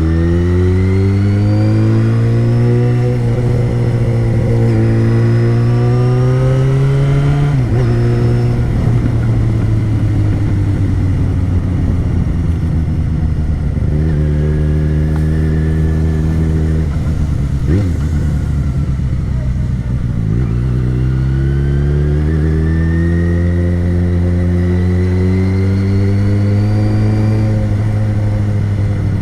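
Yamaha XJ6's 600 cc inline-four with an open exhaust, accelerating through the gears: the engine note climbs, drops sharply at a gear change about seven seconds in, falls back and holds steady for a while, then climbs again near the end.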